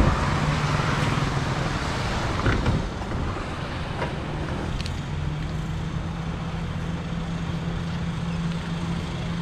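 Honda ADV scooter's single-cylinder engine running at low, steady revs as the bike slows, with the rush of riding wind on the microphone dying away over the first couple of seconds. A few light knocks.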